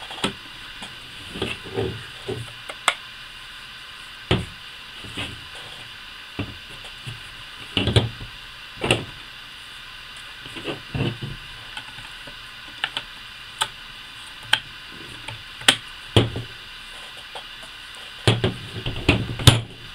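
Plastic forearm and body of a Daisy Powerline 880 air rifle being handled and fitted together: scattered, irregular knocks and clicks of plastic on plastic and against the tabletop, with a quick cluster of them near the end, over a steady hiss.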